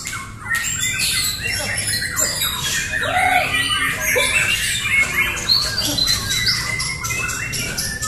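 Many caged white-rumped shamas (murai batu) singing at once: a dense, continuous chorus of overlapping whistles and rapid chirps.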